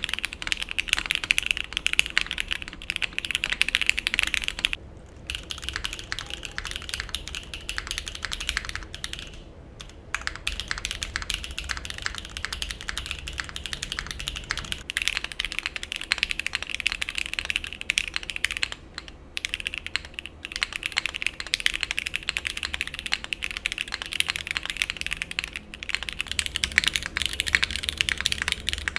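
Fast typing on custom-built mechanical keyboards with lubed switches: a dense, continuous stream of keystroke clacks that breaks off briefly a few times.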